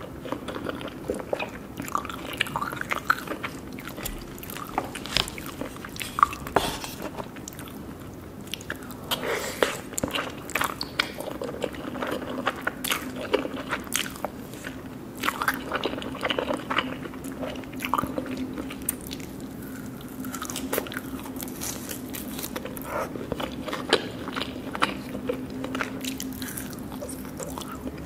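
Irregular crunching and clicking sounds, like a person biting and chewing something crisp, over a steady low hum.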